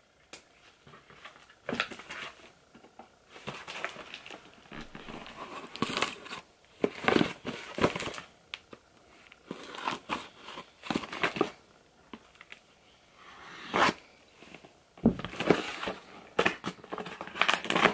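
Knife slicing packing tape on a cardboard shipping box, and the cardboard flaps being pried and torn open: an irregular run of scrapes, rips and rustles.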